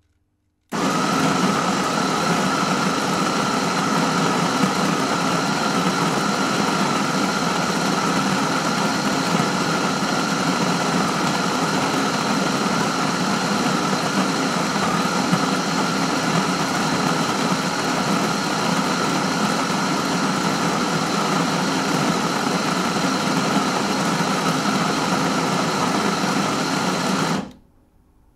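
Electric coffee grinder grinding coffee, its motor running steadily at an even pitch. It switches on abruptly about a second in and cuts off about a second before the end.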